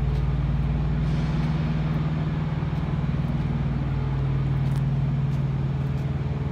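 Semi truck's diesel engine running steadily as the truck drives slowly, a continuous low drone.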